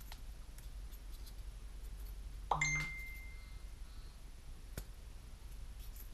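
A single small metal clink with a short bright ring about two and a half seconds in, as small parts are worked out of a model helicopter's main blade grip with a metal pick. Faint clicks of handling come before and after, and another small tap near the end.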